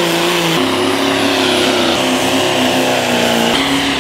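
Turbo-diesel pickup trucks pulling a weight-transfer sled at full throttle, engines held at high revs. Several short clips are cut together, so the engine pitch jumps abruptly every second or so.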